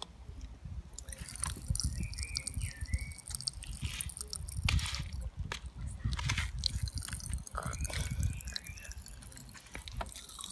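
Pop Rocks popping candy (Cotton Candy Explosion) crackling in a child's mouth: a dense run of tiny sharp pops, really poppy.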